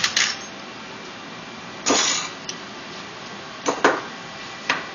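Heavy steel parts of a bolted welding fixture being taken apart by hand: a few sharp metal clanks and knocks, with a short scrape about two seconds in.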